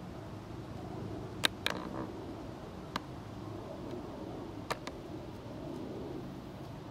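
A handful of short, sharp clicks and taps, two close pairs and one single, over a steady low hum.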